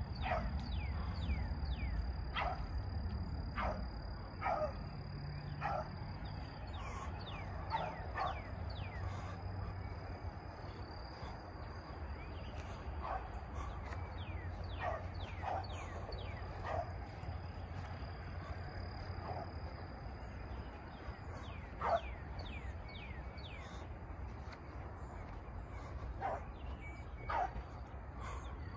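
A beagle barking and baying in short, irregular calls, denser in the first half and thinning out later, with one louder bark about two thirds of the way through. A steady high cricket trill runs underneath.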